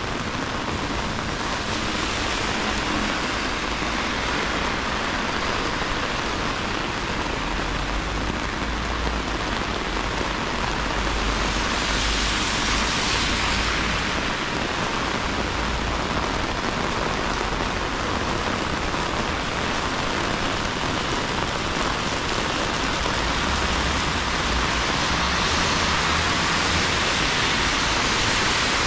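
Heavy rain pouring down on a city street, a dense steady hiss that swells twice. A low rumble comes and goes underneath.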